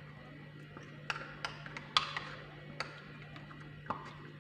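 A mixing utensil knocking and clicking against a bowl while Vaseline is stirred into an egg mixture, about six irregular knocks over a steady low hum.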